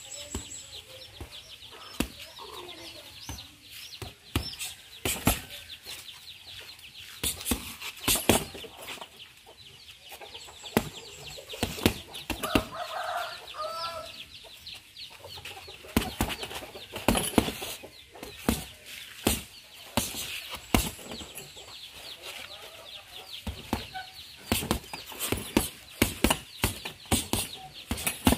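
Boxing gloves thudding into a heavy punching bag in irregular punches and quick combinations, denser near the end. A chicken calls briefly about halfway through, over a steady high buzz.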